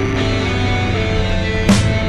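Rock music with held electric guitar notes; a drum hit comes in about 1.7 seconds in.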